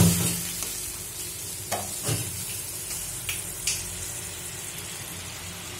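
Watery onion-tomato masala sizzling in a metal pan as a spatula stirs it. A loud knock of the spatula on the pan at the start, then a few lighter scrapes and taps in the first four seconds.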